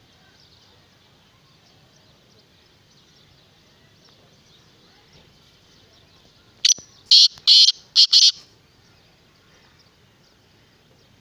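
Male black francolin giving its loud, harsh call about halfway through: a burst of five grating notes in under two seconds.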